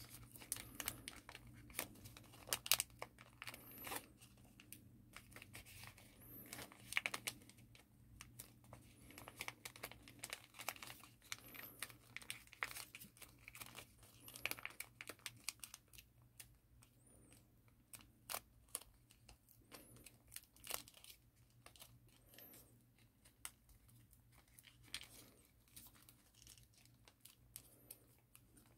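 Paper crinkling and crackling in short, scattered bursts as a many-layered origami fold is creased and shaped by hand; the paper is thick at this point and is prone to tearing.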